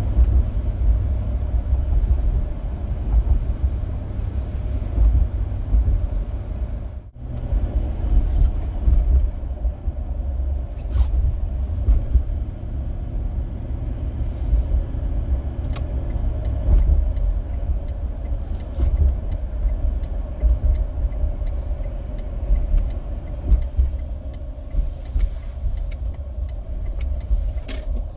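Mercury Grand Marquis heard from inside the cabin while driving: a steady low rumble of its 4.6-litre V8 and the road, which cuts out briefly about seven seconds in. Light, scattered ticks come in over the rumble later on.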